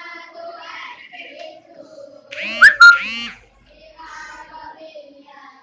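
A children's choir singing in a hall, with a short, much louder pitched sound close to the microphone about halfway through.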